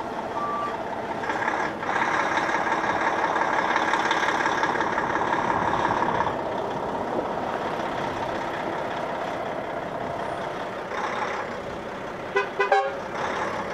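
Mack Trident 535 tip truck's diesel engine running and revving as it manoeuvres slowly, louder for the first few seconds and again about three-quarters through. Its reversing alarm gives one last beep at the start, and there are two short horn toots near the end.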